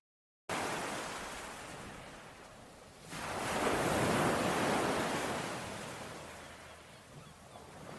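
Ocean surf washing on a shore, starting abruptly after half a second of silence. A larger wave swells in about three seconds in, peaks and ebbs away, and the next begins building near the end.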